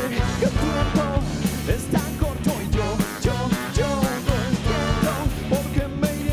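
Rock band playing live: a drum kit keeping a steady beat under bass and electric guitar, with a melody line sliding up and down in pitch over it.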